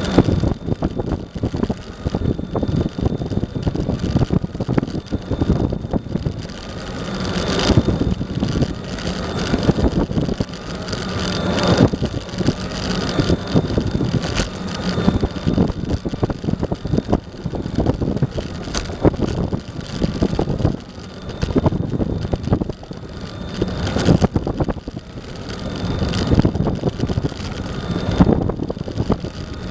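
Eglide 42 electric skateboard rolling along asphalt: a steady rumble of the wheels over the pavement with frequent small knocks, a faint whine that wavers in pitch as the speed changes, and wind on the microphone.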